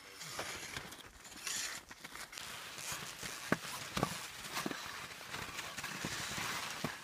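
Touring skis on skins shuffling and scraping over snow with the crunch of steps and pole plants, and a few sharp clicks about three and a half to five seconds in.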